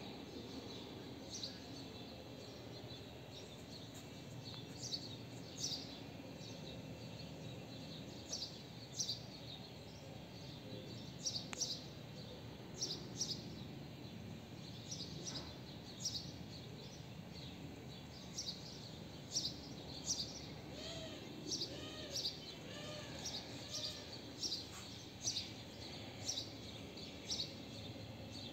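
A small bird chirping over and over, short high chirps every second or so, over a steady hum of outdoor background noise. A run of lower, arched calls comes in about two-thirds of the way through.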